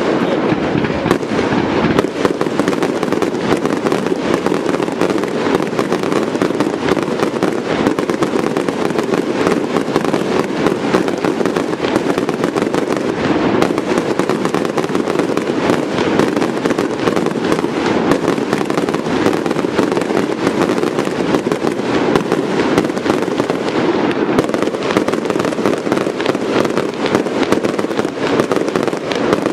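Aerial fireworks display: a dense, unbroken barrage of shells bursting and crackling, many sharp reports a second with no let-up.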